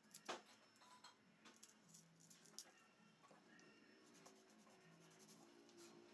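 Faint scratching and light clicks of a small kitchen knife peeling the papery skin off an onion, the sharpest click about a third of a second in.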